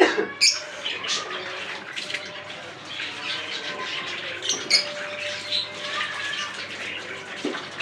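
Lovebirds chattering, a dense overlapping mix of short chirps and squawks, with a few sharper, louder calls standing out.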